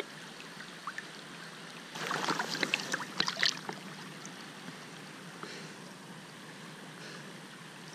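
Shallow stream water running steadily close to the microphone at the surface, with about a second and a half of splashing and dripping some two seconds in as hands handle a rainbow trout in the water.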